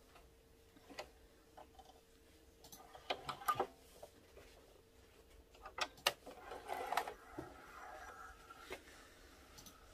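A few sharp clicks and taps from a sewing machine's automatic needle threader and the fingers handling it, loudest about three and a half seconds in and again around six seconds. Then a soft rustle for a second or two as the thread is pulled through the needle eye.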